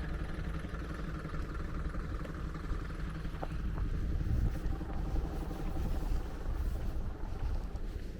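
Steady low rumble of a moving cable-car cabin, with a few faint clicks in the middle.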